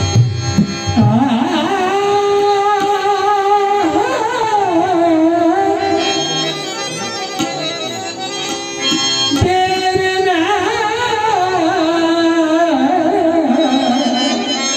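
Devotional bhajan: a voice singing long, ornamented held notes over harmonium accompaniment, with light tabla strokes beneath, in two long phrases.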